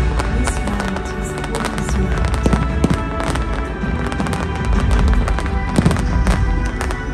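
Fireworks going off in rapid cracks and bangs, over loud music playing.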